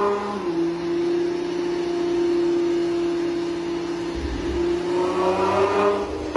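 Nissan GT-R R35's twin-turbo 3.8-litre V6 running under load on a dyno at a steady engine speed. Its pitch dips a little just after the start, holds level, then climbs slightly near the end.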